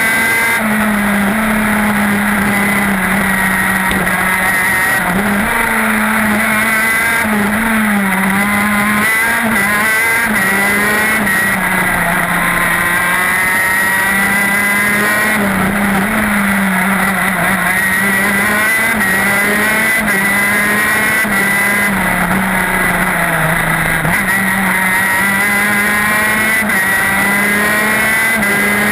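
TM K9B 125cc two-stroke shifter kart engine at racing speed, its note climbing in pitch again and again as it pulls up through the gears and dropping back between climbs.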